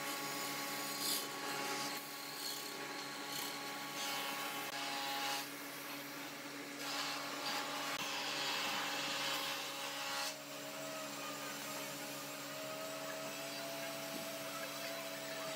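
Compressed-air spray gun hissing on and off as clear finish is sprayed onto a wooden tabletop, over a steady machine hum.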